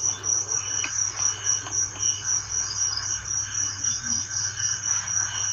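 Crickets chirping in an even, rapid pulse, a few high chirps a second, over a steady low hum.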